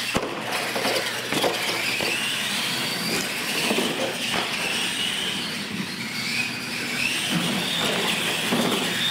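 Two retro solid-axle R/C monster trucks racing flat out, their electric motors and gearboxes whining, rising and falling in pitch with the throttle over a hiss of tyres on the concrete floor. A few sharp knocks come as the trucks land off the ramps.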